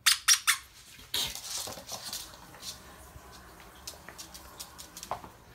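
Squeaky plush dog toy squeezed three times in quick succession, then a longer, rougher sound of the toy about a second in. After that come light, scattered ticks of a small dog's claws on a hardwood floor.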